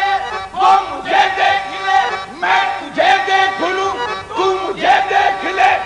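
Qawwali music: a group of male voices singing a short phrase over and over in unison, the melody rising and falling, with sharp beats marking the rhythm.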